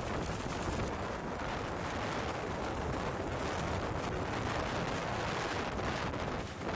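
Gale-force wind buffeting a nylon mountain tent and the microphone: a steady, dense rush of wind noise with the tent fabric shaking in it.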